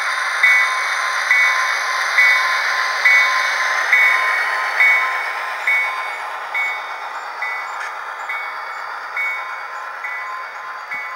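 HO-scale model diesel locomotive's sound decoder ringing the bell steadily, about once a second, over a steady running hiss of the engine sound and wheels. The sound fades gradually as the train moves away.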